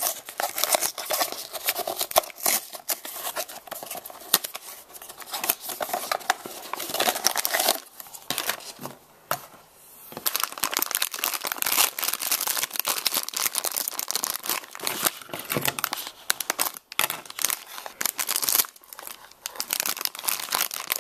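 A cardboard blind box being opened and a sealed foil blind bag crinkled and torn open by hand: a dense run of crackles and rustles, with a couple of short pauses.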